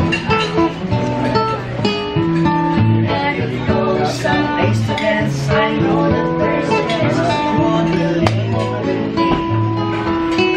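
Live acoustic guitar playing chords with a woman and a man singing a song together to its accompaniment.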